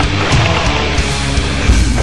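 Loud heavy metal music.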